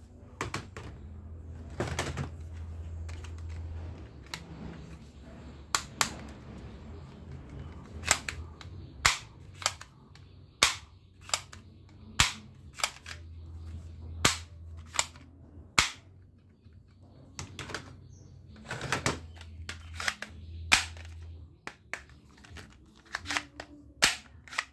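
Plastic toy guns clicking as they are handled and worked: a string of sharp plastic clicks at irregular intervals, about one a second, some in quick pairs.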